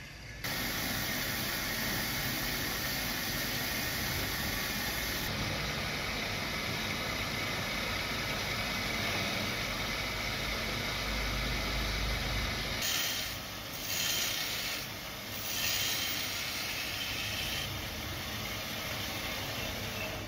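Wood lathe running while a hand chisel cuts into a spinning wooden shovel handle, giving a steady hissing shave of wood. It starts suddenly about half a second in, with two louder swells past the middle.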